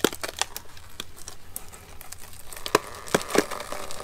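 Scattered sharp cracks and crackling as a freshly cured fiberglass part is worked loose from its taped, draftless mold, with a cluster of louder snaps about three quarters of the way through.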